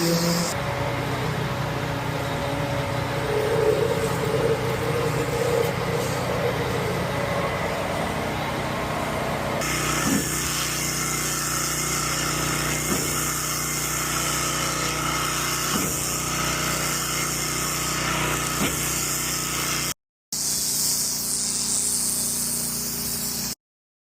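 Concrete pump truck's engine running steadily. The sound changes abruptly about ten seconds in and drops out briefly near the end.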